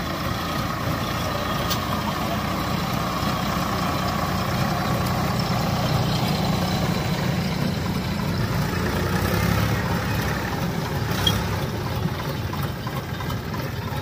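Sonalika farm tractors' diesel engines running steadily as they pull tipping trolleys through sand. A single short, sharp knock comes about eleven seconds in.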